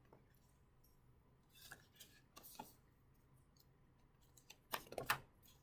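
Near silence with faint paper handling, then about five seconds in a short rustle and a few crisp ticks as a hardcover picture-book page is turned.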